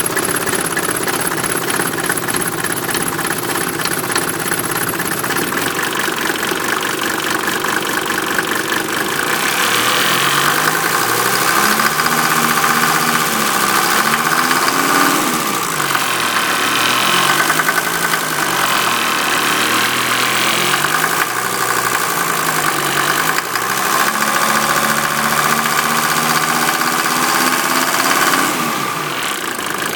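1988 Mercedes-Benz 190D diesel engine, fuelled on waste vegetable oil, running with a steady clatter and knock: the loud clanging that the owner cannot identify and wonders whether is normal for this car.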